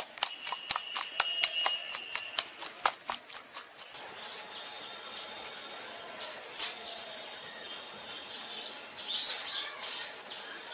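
A hand working thin batter in a steel bowl: a quick run of sharp wet slaps and clicks for the first few seconds. After that the mixing goes quiet, and birds chirp in the open air, most plainly near the end.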